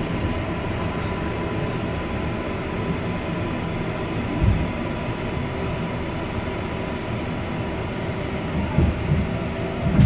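Inside an R142A subway car running on the line: a steady rumble with a faint steady high tone over it, and a few low thumps, one about halfway and several near the end.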